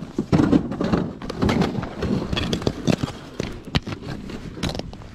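Footsteps crunching over broken slabs of lake ice and crusted snow, a dense, irregular run of crunches and knocks.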